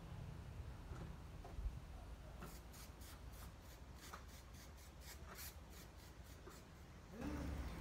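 Faint, irregular scratchy rubbing strokes, several a second, from about two seconds in. Near the end a louder animal call with a wavering pitch begins.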